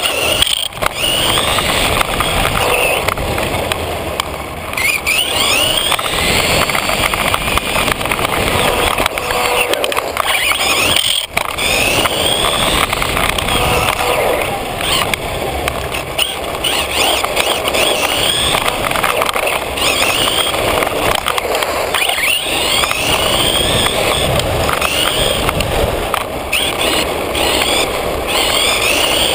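Team Associated RC10B3 electric RC buggy driving hard on asphalt, heard from a camera mounted on the car: its electric motor and gears whine up in pitch again and again as the throttle is worked. Under the whine, a constant hiss of tyres on rough pavement, with one brief drop-out about eleven seconds in.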